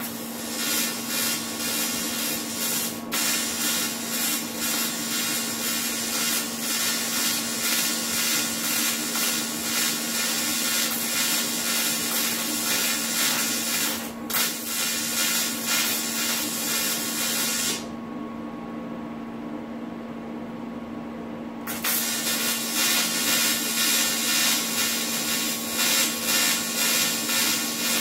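Electric arc welding: a dense, crackling hiss in long passes, broken off briefly twice and then stopping for about four seconds before starting again. A steady electrical hum runs underneath.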